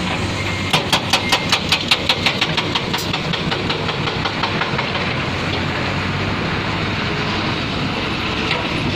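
Diesel engine of a heavy construction machine running steadily. A quick run of sharp knocks, about five a second, comes in just under a second in and fades away by about halfway through.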